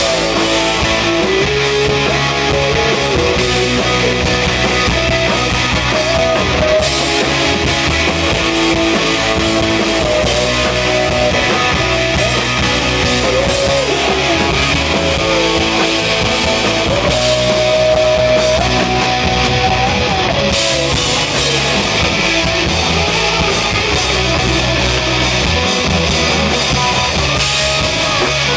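Live amplified country-rock band playing a song: electric and acoustic guitars over bass and drums, with a melodic lead line sliding between held notes.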